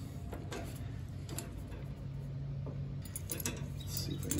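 Scattered light metallic clicks and taps as the disc brake assembly of a John Deere LT150 lawn tractor is handled and worked loose by hand, with the clicks coming more often near the end. A steady low hum runs underneath.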